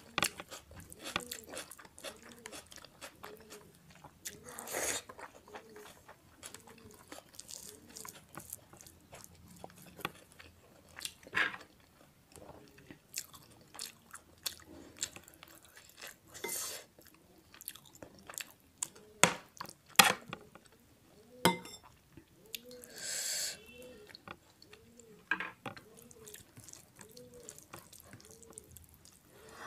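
Close-up chewing of mutton keema and rice eaten by hand: steady wet mouth sounds with many small sharp clicks and smacks, a few louder clicks, and one brief hiss about two-thirds of the way through.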